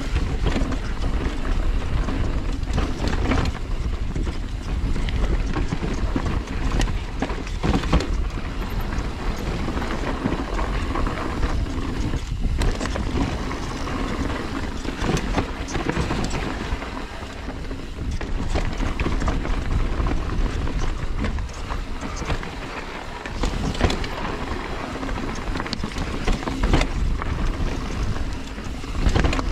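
Mountain bike ridden down a rough dirt trail. Wind rushes steadily over the microphone, with the bike's rattle and clatter over rocks and roots and several sharp knocks along the way.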